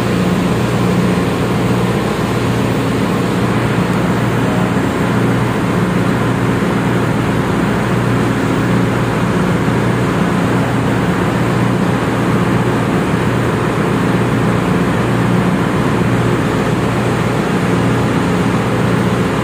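Ship's engine-room machinery running: a loud, steady drone with a constant low hum.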